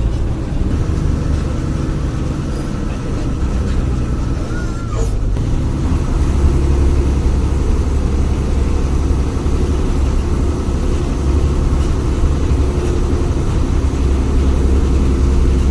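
Jaya Guna HG bus's diesel engine running under way with a deep, steady, snoring growl ('ngorok'), growing louder about five seconds in.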